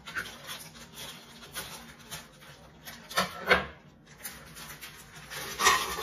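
Kitchen handling sounds: a few short scrapes and knocks, two about halfway through and the loudest near the end.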